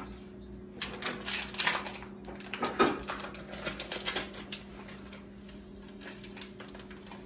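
Rapid clicking and tapping of kitchen work, dense for a few seconds and then sparser, over a steady low hum.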